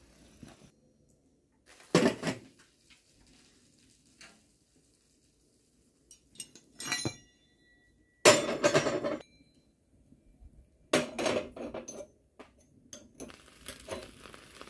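Cast-iron wood-stove hob rings clanking as they are lifted off and set back with a lifter hook: several separate bursts of metal clanks, the loudest about eight seconds in, one leaving a brief ringing tone.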